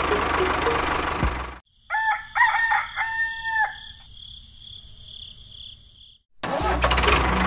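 A rooster crowing once, a cock-a-doodle-doo in three parts, about two seconds in, over a faint steady high ringing. Before it, and again near the end, a loud running engine sound mixed with music.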